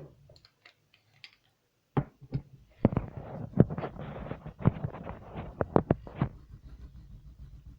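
Irregular clicks and taps of colouring tools against paper and the desk, with scratchy strokes in between, as a drawing is coloured in. The sound starts after about two seconds of near silence and thins out near the end.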